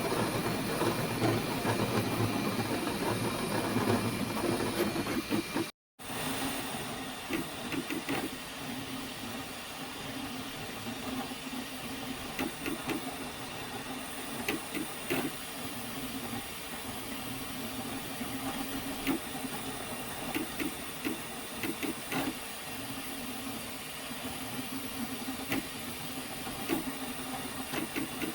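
3D printer running: a steady hiss of cooling fans and the hum of its motors, with scattered light ticks. The sound breaks off for a moment about six seconds in, then carries on steadily.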